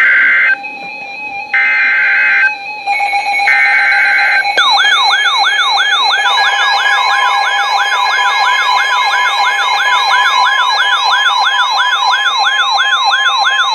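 Three short bursts of the screeching SAME digital header tones that open a NOAA Weather Radio alert. About four and a half seconds in, the weather alert radio's warbling siren alarm begins, repeating a quick sweeping tone about two to three times a second, with a steady alert tone joining underneath about two seconds later. Together they signal an incoming warning.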